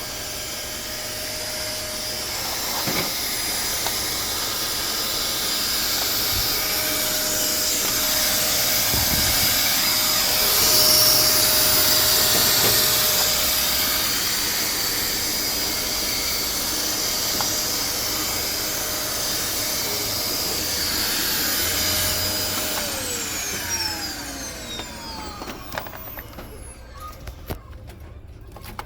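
Bissell Zing bagless canister vacuum cleaner running with a steady motor whine. About 23 seconds in it is switched off and the motor winds down, its pitch falling as it fades, followed by a few clicks.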